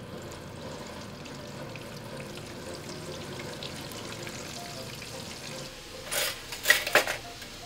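Battered monkfish pieces deep-frying in hot oil in a wok, the oil sizzling and bubbling steadily. A few sharp clicks come near the end.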